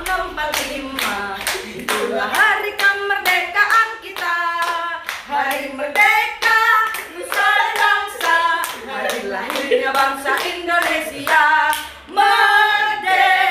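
Several women singing together and clapping their hands to a steady beat.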